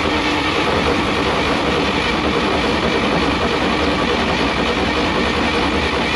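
1953 Chevrolet 5700 cab-over's inline-six engine running steadily and loudly just after catching, with a hand at the carburetor controlling it, in the truck's first attempt to run after sitting for decades.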